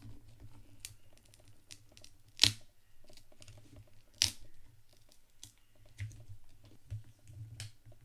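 Paper-and-adhesive pull tab under a tablet battery being worked by hand: crinkling and small clicks, with two sharper snaps about two and a half and four seconds in, as the battery is pulled loose from its adhesive. A low hum runs underneath.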